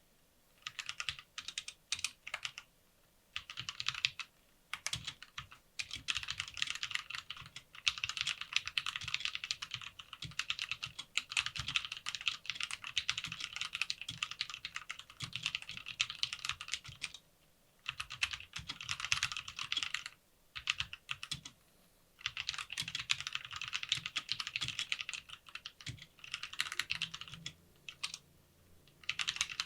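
Typing on a Lofree Wanderfree keyboard: quick runs of key clicks in bursts of a few seconds, separated by short pauses, with one long steady run in the middle.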